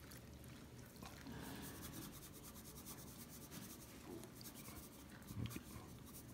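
Faint rubbing of hands working dry seasoning into the skin of a raw whole chicken, with a soft bump a little over five seconds in.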